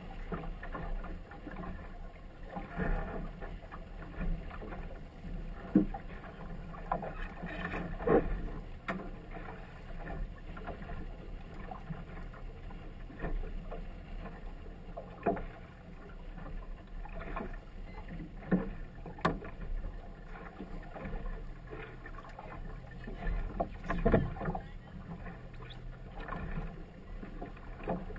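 Choppy water slapping against the bow of a small boat held at a buoy: irregular sharp slaps every second or few over a steady wash of water.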